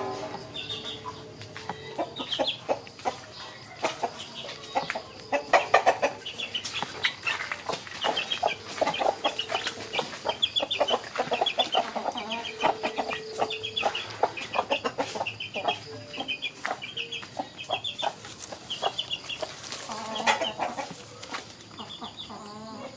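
Domestic chickens clucking, with short high chirps repeating about every half second throughout, over scattered light knocks.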